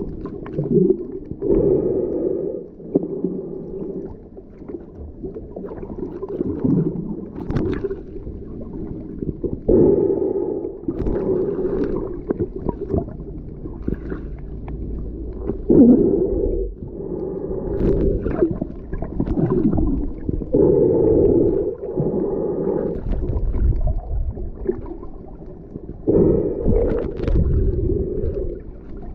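Muffled underwater sound from a submerged camera: water sloshing and gurgling in uneven surges every few seconds, with low rumble underneath.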